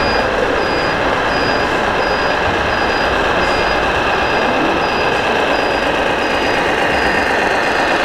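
Steady noise of RC model trucks running in a busy exhibition hall, with a high electronic beep repeating evenly about three times every two seconds, like a truck's reversing alarm.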